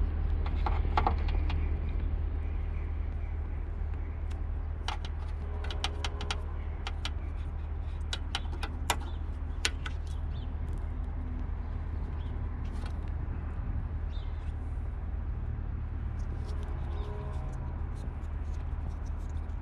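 Light clicks and taps of a small plastic bottle cap handled in the fingers, over a steady low rumble.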